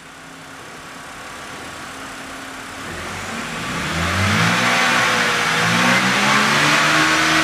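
Nissan 240SX's red-top SR20 engine running and being revved, held up around 2,000 rpm. It grows steadily louder, rises in pitch about three seconds in, then wavers up and down.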